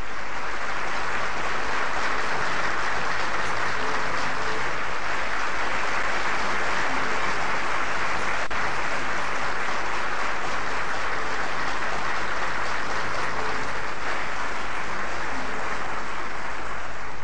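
Audience applauding steadily at the end of a performance.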